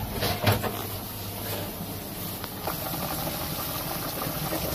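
Steady low hum and hiss of kitchen background noise, with a couple of light knocks in the first second.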